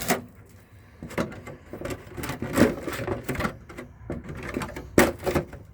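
Irregular clicking and knocking of things being handled, with a sharp knock about five seconds in.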